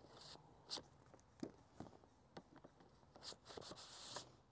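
Faint clicks and rustles of hands working at a large-format view camera, with a longer rustle near the end.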